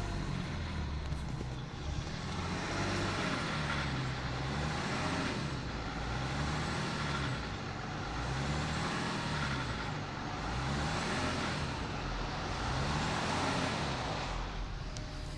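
BMW E39 530d's straight-six turbodiesel revved repeatedly, its pitch rising and falling about six times, roughly every two seconds. The owner is listening for a rattle on each throttle release, which he suspects is the timing chain.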